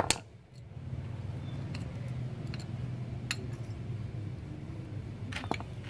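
Light metallic clicks of a Suzuki Satria motorcycle carburetor being handled and turned over, one about midway and a pair near the end, over a steady low hum; a single sharp knock right at the start.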